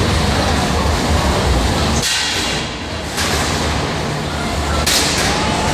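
Combat robot fight: a loud, steady rumble of the robots' machinery, with a sharp crash about five seconds in as the robots hit.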